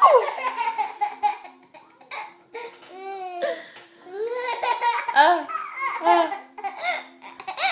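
Baby laughing hysterically, in several bursts of belly laughs and squeals with short pauses between them.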